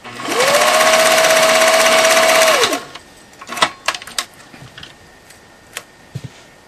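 Pfaff 1222 sewing machine stitching straight through three layers of upholstery fabric: the motor quickly speeds up, runs steadily for about two seconds, then slows and stops. A few light clicks and knocks follow.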